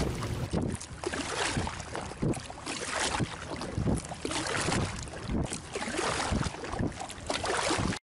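Double-bladed kayak paddle strokes dipping and splashing in lake water, a stroke every second or so, with wind on the microphone. The sound cuts off suddenly near the end.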